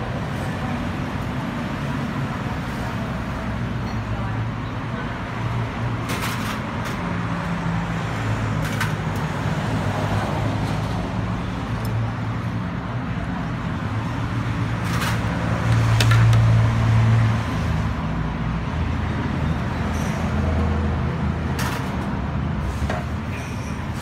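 Steady low rumble of road traffic, with one vehicle swelling louder about two-thirds of the way through, and a few short clinks over it.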